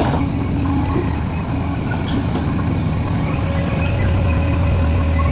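Heavy diesel engine of a mining machine running steadily, a low even drone, with a few faint clanks about two seconds in.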